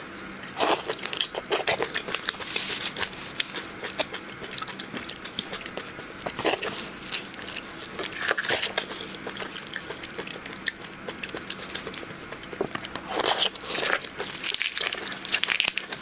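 A person biting and chewing shellfish close to the microphone: repeated crunches and crackly clicks of shell and flesh, coming in irregular clusters.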